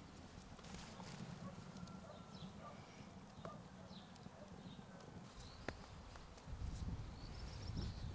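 Soft pats and taps of floured hands shaping cottage cheese dough into syrnyky patties and setting them down on a floured wooden board, with faint bird chirps and a low rumble that grows louder near the end.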